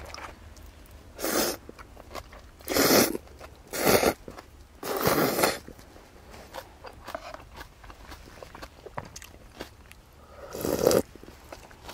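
A person eating at close range: four short noisy mouth sounds about a second apart, then one more near the end.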